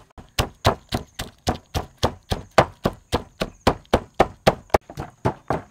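Wooden pestle pounding red chillies and garlic in a large wooden mortar: steady, even thuds, about three to four strokes a second.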